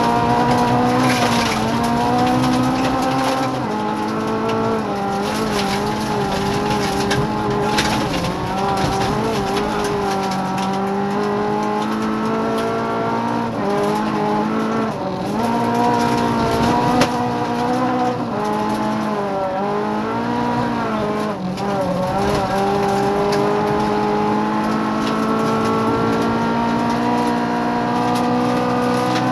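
Rally car engine heard from inside the cabin, run hard on a gravel stage: revs climb and drop repeatedly through gear changes and lifts, with several quick dips near the middle. Scattered sharp knocks and rattles from the car's body and underside come through over the engine.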